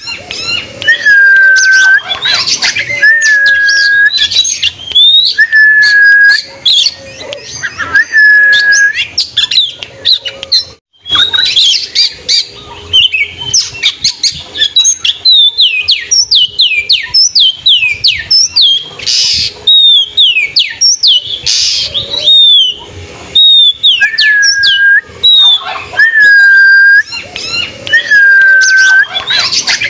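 Oriental magpie-robin singing loudly. A whistled phrase, a quick upswept note then a held clear note, repeats about every two seconds. In the middle it breaks into a fast run of varied, falling chirps and whistles before the repeated phrase returns, with a brief break in the song about a third of the way in.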